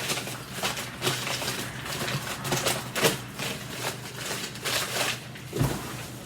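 Hands rummaging through a cardboard shipping box and its packing paper: irregular rustling, crinkling and light knocks.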